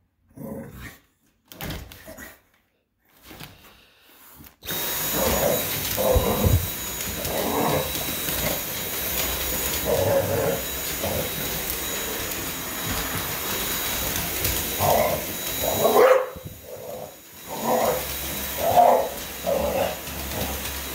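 An English bulldog barking repeatedly at a cordless stick vacuum. A few seconds in, the vacuum switches on with a steady high whine and hiss that runs under the barks; it cuts out briefly about three-quarters of the way through, then starts again.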